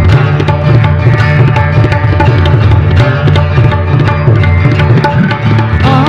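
Tabla played in a fast, busy pattern, its deep bass-drum strokes bending in pitch, over strummed acoustic guitar in Indian-influenced fusion music.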